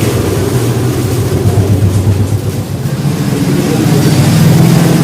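Small two-wheeler petrol engine running at idle with a rough, fluttering note, picking up a little in pitch about three and a half seconds in as it is revved slightly.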